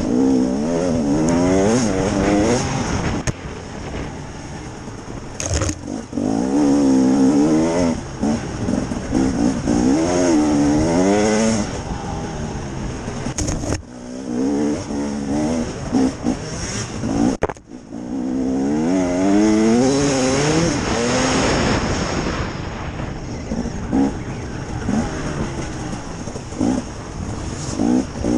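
Two-stroke engine of a KTM EXC 300 enduro motorcycle revving up and falling back again and again as it is ridden hard, with the throttle snapped shut briefly twice about halfway through.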